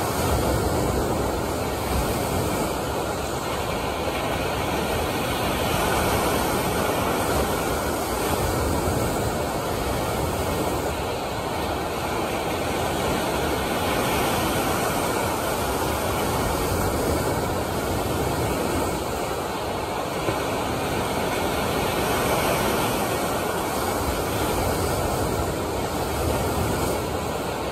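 Waves of an artificial surf pool breaking and rushing: a steady wash of water noise with a low rumble underneath, swelling and easing slowly.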